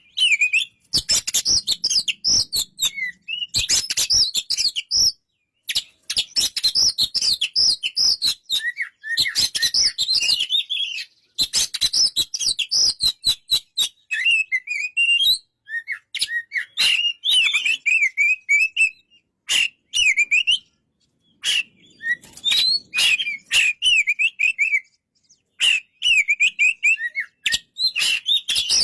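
Oriental magpie-robin singing: long, varied runs of quick whistled and chattering notes broken by short pauses every few seconds.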